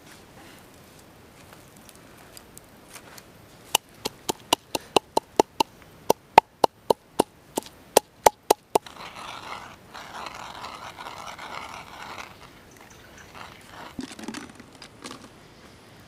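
Stone pestle pounding red chilies in a wooden mortar: about sixteen sharp knocks, roughly three a second, then a few seconds of rough scraping as the pestle grinds in the bowl.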